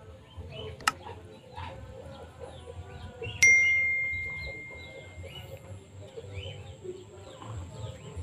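Subscribe-button sound effect: a sharp click about a second in, then a bright bell ding a couple of seconds later that rings on and fades slowly; the ding is the loudest sound. Birds chirp throughout.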